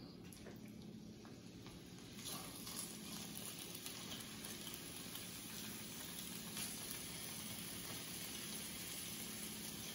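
Cubed deer stew meat sizzling faintly in a hot, oiled skillet as it starts to brown. The sizzle picks up about two seconds in and then holds steady.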